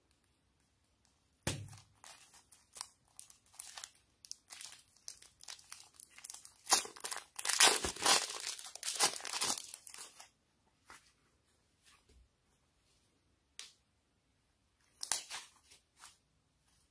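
Plastic piping bag crinkling and tearing as it is squeezed open, with soft clay peeling out of it in sticky, crackling strands. The crackling comes in scattered snaps at first, is heaviest in the middle, then thins out with a short flurry near the end.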